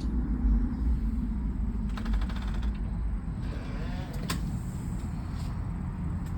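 A low, steady rumble that the listener can feel shaking the house, from something heard but not seen. A brief run of rapid clicks sounds about two seconds in, and a single sharp click comes past four seconds.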